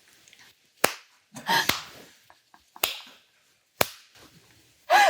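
Open hands slapping a person's body during a massage: four sharp slaps about a second apart.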